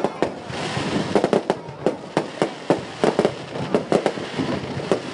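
Aerial fireworks display: shells launching and bursting in quick succession, a rapid series of sharp bangs, several a second, over a continuous crackling hiss.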